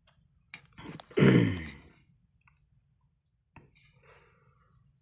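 A person's short vocal sound, falling in pitch, about a second in, with a few sharp clicks around it.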